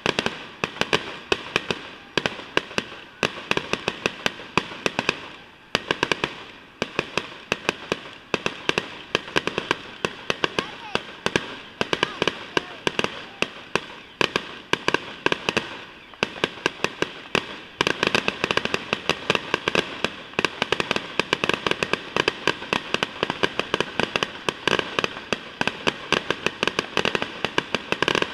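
Fireworks going off in a rapid, continuous run of sharp bangs and crackling pops, many a second, with a few short lulls.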